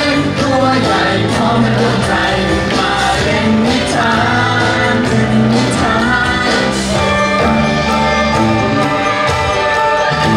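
Children's stage song: sung vocals over backing music, giving way to held instrumental notes about seven seconds in.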